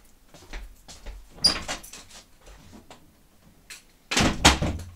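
A door being opened, with clatter and handling noises about a second and a half in, then shut with a heavy bang near the end.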